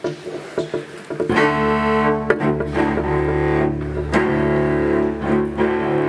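A few short single notes, then about a second in a small ensemble of piano and bowed strings with cello and double bass starts playing full, sustained chords.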